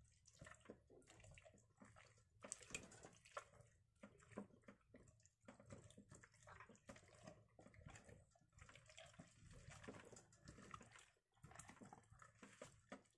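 A hand rubbing and turning a raw whole chicken in a glass baking dish: faint, irregular wet smacks and squishes of the damp skin against the hand and the glass.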